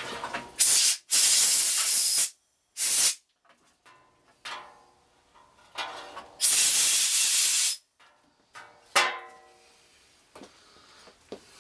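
Four loud hissing blasts from a pressurized nozzle, two short and two lasting over a second, each starting and stopping abruptly, with a few light metal clinks between them.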